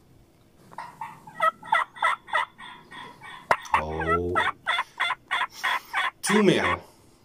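Wild turkey toms gobbling: a long run of quick rattling notes that starts about a second in and is loudest toward the middle.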